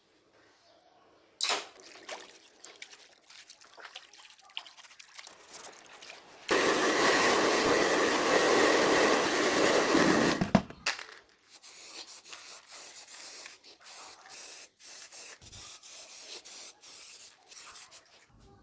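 A hissing spray in one steady burst of about four seconds, with small clicks and rubbing from handling before and after.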